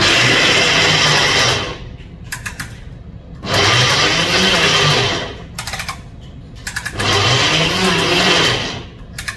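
Ninja Twisti blender motor running in three pulses of about a second and a half each, grinding whole almonds at the start of making almond butter; its pitch rises and falls within each pulse. Short clattering clicks come between the pulses.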